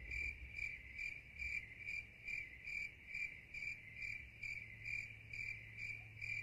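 Cricket chirping sound effect: short, high chirps repeating evenly about twice a second, the stock 'awkward silence' gag.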